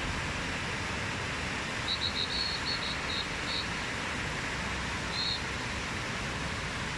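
The Trevi Fountain's cascades splashing and pouring into the basin in a steady rush. About two seconds in comes a quick run of short high chirps, and one more just after the five-second mark.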